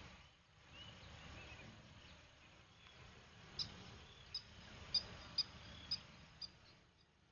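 Faint outdoor ambience with a small bird giving a run of six short, high chirps about half a second apart in the second half, after a couple of fainter calls near the start.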